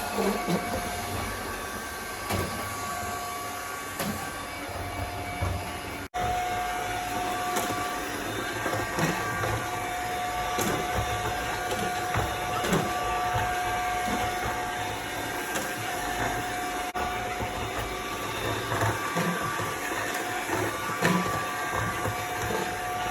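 Aiibot T288 robotic vacuum cleaner running: a steady motor whine with scattered clicks and knocks, cut off for an instant about six seconds in.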